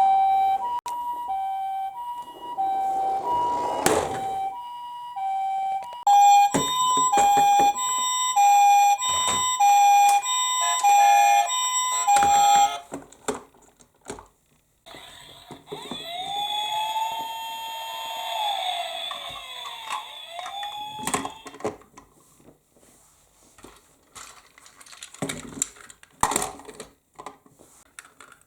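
Toy emergency-vehicle minicars sounding electronic sirens. First comes a two-tone hi-lo siren switching pitch about once a second. At about six seconds a faster, louder two-tone takes over, and after a short gap a single wail rises and falls. Scattered sharp clicks and knocks follow in the last few seconds.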